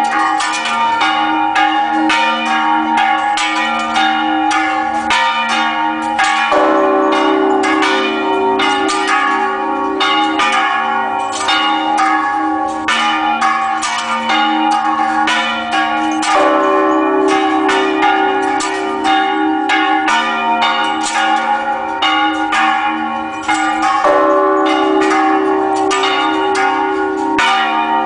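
Church bells rung in a festive repique, many quick strikes overlapping in a continuous ringing peal, calling the faithful to Mass. A deeper bell comes in about six seconds in, drops out after sixteen, and returns near twenty-four.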